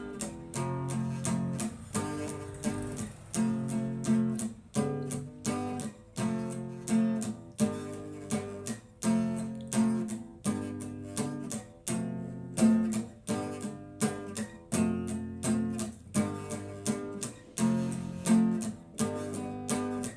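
Instrumental break in a song: acoustic guitar strumming chords in a steady rhythm.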